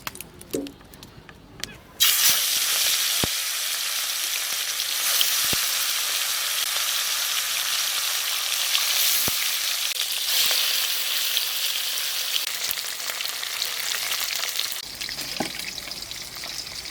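Pieces of marinated tilapia frying in hot mustard oil in a pan: a loud, steady sizzle that starts suddenly about two seconds in, as the fish goes into the oil, and eases a little near the end.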